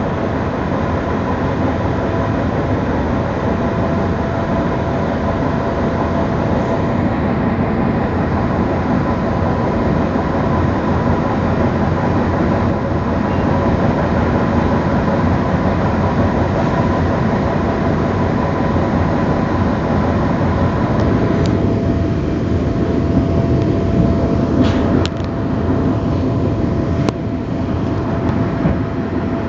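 Passenger train running at speed, heard from inside the carriage: a steady rumble with a faint steady whine, and a few sharp clicks in the last third.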